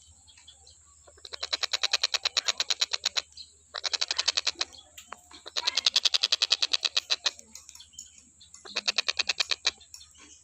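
Tengkek buto kingfisher calling in rapid rattling series: four bouts of fast, evenly repeated sharp notes, each lasting one to two seconds, with short pauses between.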